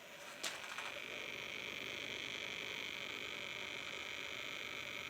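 A click about half a second in, then a small adult toy's motor buzzing steadily after being switched on.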